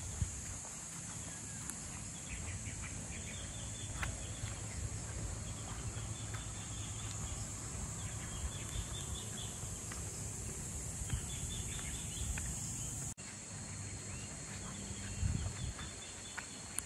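Outdoor morning ambience: small birds chirping in short quick bursts over a steady high-pitched insect drone, with a low rumble underneath. The sound drops out suddenly for an instant about 13 seconds in.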